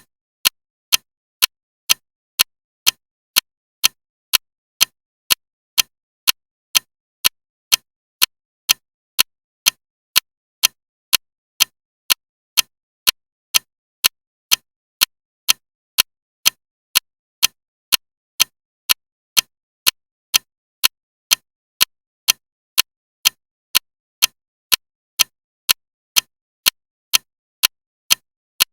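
Loud clock ticking steadily, about two sharp ticks a second with silence between each.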